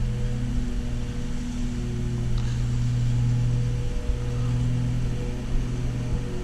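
A steady low machine hum at one pitch with a few overtones, dipping briefly twice.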